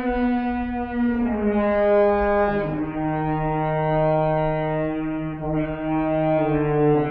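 French horn playing long held notes that step lower in pitch every second or few, run through live computer effects and a loudspeaker.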